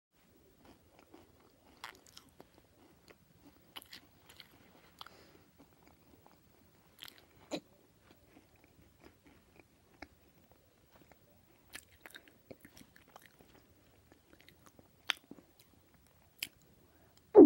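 Chewing sound effect: irregular, soft crunching and clicking bites with short quiet gaps between them, and a few sharper clicks.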